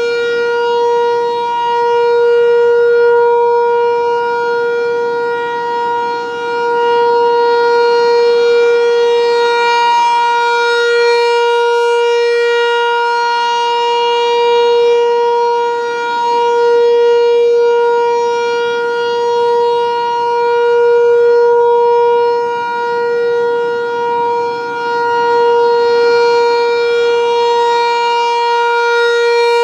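ASC T-128 rotating outdoor warning siren sounding a loud, steady alert tone that holds one pitch. Its loudness swells and fades every several seconds as the rotating horn sweeps toward and away.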